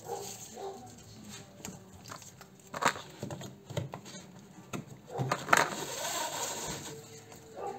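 Hands shifting the convertible roof's hydraulic motor unit and its lines out of the way: rustling and scraping with scattered clicks and knocks, the sharpest about three and five and a half seconds in.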